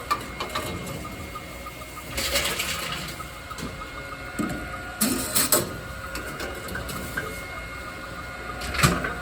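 Tomra T-53 reverse vending machine running with a steady whir as plastic bottles are fed in, broken by three louder rattling bursts: one about two seconds in, one in the middle, and one near the end.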